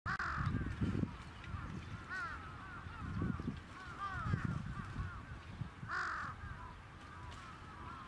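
Several crows cawing over and over, their calls overlapping, with the loudest caws near the start and about six seconds in. A low uneven rumble runs underneath.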